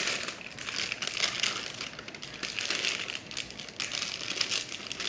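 Thin plastic bag crinkling and rustling irregularly as handfuls of sticky bread dough are pushed into it by hand.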